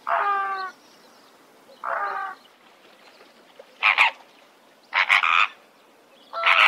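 Flamingos calling: a series of five short honks about every second or so. The first two are longer, with a clear pitch, and the later ones are shorter and harsher.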